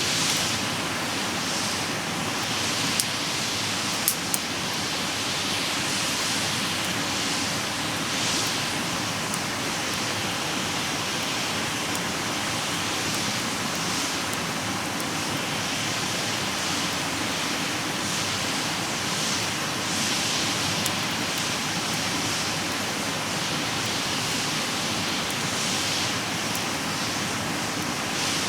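Wood campfire burning in a fire pit: a steady rushing hiss that swells softly every couple of seconds, with a few sharp crackles about three and four seconds in.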